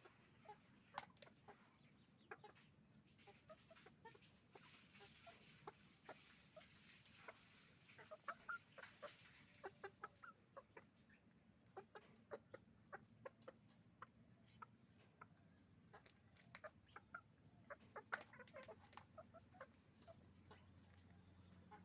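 Faint flock of chickens clucking, with many short calls overlapping and coming in irregular clusters.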